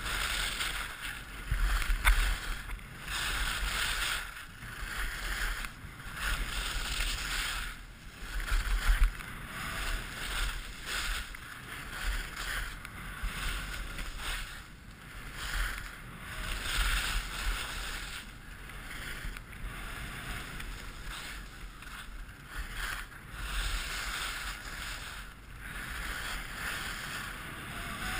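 Skis carving turns on hard-packed groomed snow, a scraping hiss that swells and fades with each turn about every two seconds, with low rumbles of wind on the microphone.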